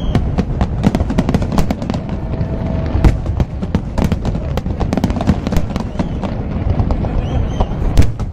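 Fireworks display: a rapid, continuous barrage of aerial shells bursting and crackling over a steady low rumble, with a loud bang about three seconds in and another near the end.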